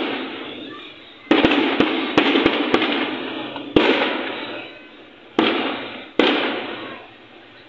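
Fireworks going off in a series of loud bangs, heard from inside a car. Each bang cracks sharply and dies away over about a second in a long echo: a quick cluster of half a dozen bangs about a second and a half in, then single bangs near four, five and a half, and six seconds.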